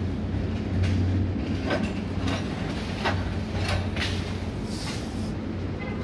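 A steady low mechanical hum with irregular sharp clicks and knocks over it.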